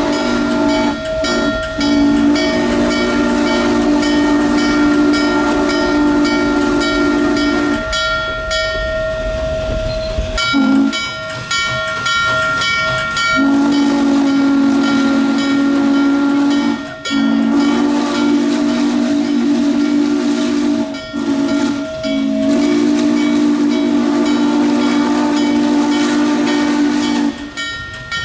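Norfolk and Western J-class 611's steam whistle sounding a series of long, low, chord-like blasts with short breaks between them, the longest lasting about five seconds.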